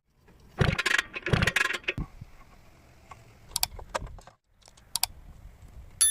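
Small metal parts and tools clattering as they are handled: two bursts of jangling clatter in the first two seconds, then a few separate clicks and a ringing metallic clink near the end.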